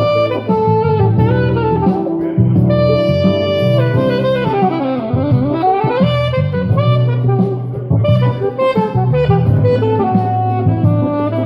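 Saxophone improvising a jazzy melody over a steady low accompaniment, with a fast run down and back up near the middle.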